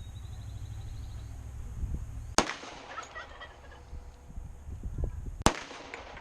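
Two pistol shots from a Hi-Point .45 ACP handgun, about three seconds apart, each a sharp crack with a brief echo.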